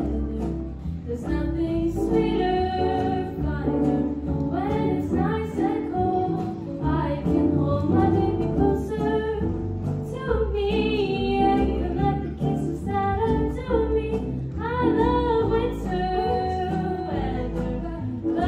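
Two female singers performing a duet into handheld microphones over instrumental accompaniment.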